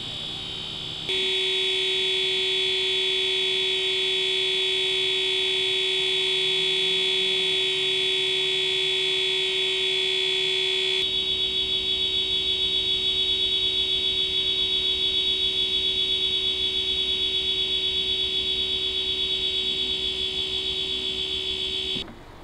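A steady electronic alarm tone, one held note with overtones, that starts abruptly about a second in. About halfway it takes on a fast, even flutter, and it cuts off suddenly near the end.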